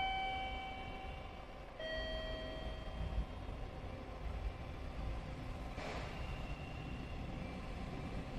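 A two-note chime, a higher note then a lower one, each ringing out and fading over about a second, over the low rumble of a train pulling into the station. The rumble holds and grows, with a short hiss about six seconds in.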